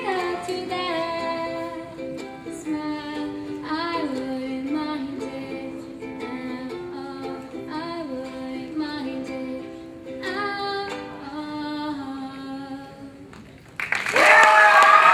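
A girl sings a slow melody over a strummed ukulele, closing out the song. Just before the end a sudden loud burst of audience cheering breaks out, louder than the song.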